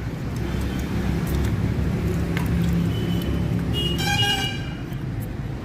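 A vehicle horn honks once, briefly, about four seconds in, over a steady low rumble of engine and traffic noise, with a few light clicks.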